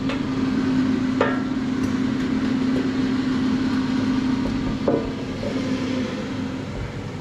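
Ninja dual-drawer air fryer's fan running its cool-down cycle with a drawer open, a steady low hum that dies away near the end. Two light knocks come about a second in and just before five seconds.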